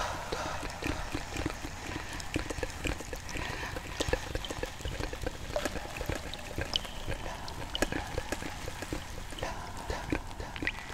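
Water trickling and dripping, with many small irregular drop-like plinks.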